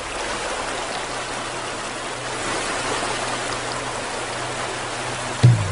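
Steady rushing of flowing stream water, an even hiss, with a loud low musical note breaking in near the end.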